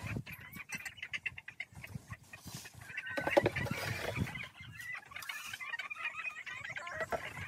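A flock of brown laying hens clucking and calling over one another, with a few scattered low knocks.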